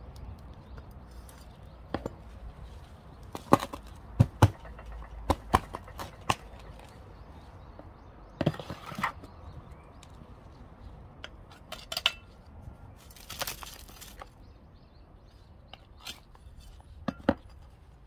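A trowel and a gloved hand working potting mix into a plastic pot: a dozen or so sharp knocks and clicks as the trowel strikes the pot, with two short gritty scrapes of soil being scooped and pushed about halfway and two-thirds through.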